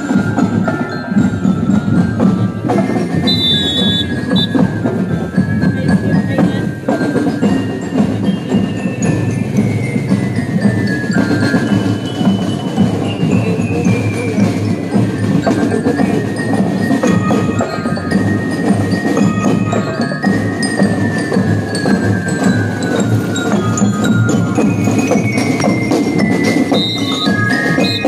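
A drum and lyre corps playing a marching tune: bell lyres carry the melody in stepping, falling runs over steady snare and bass drums.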